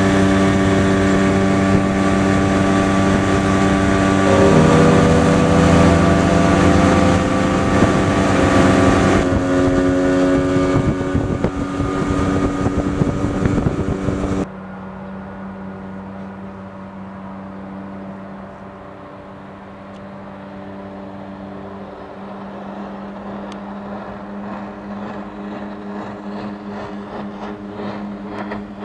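Mercury 50 hp two-stroke outboard running at speed, heard from aboard with a rush of wind and water, its pitch stepping up about four seconds in. About halfway through it cuts to the same motor heard from shore, fainter and steady, growing louder as the boat approaches.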